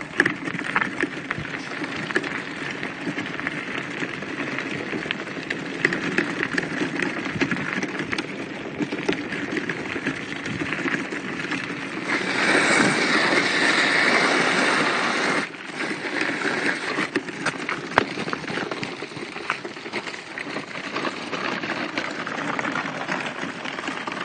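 Small rubber wheels of a homemade wooden dog cart rolling over a wet, slushy road as a dog pulls it: a steady rolling rumble with a wet hiss. About halfway through it grows louder for three seconds or so, then drops back suddenly.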